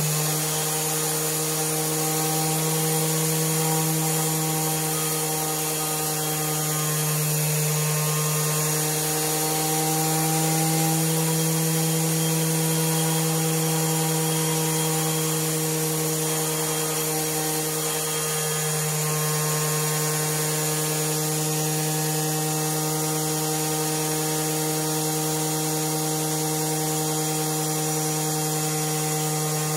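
Compressed-air Tesla turbine generator running steadily at high speed: a steady gear whine from its RC-car gears over a hiss of air rushing through the turbine.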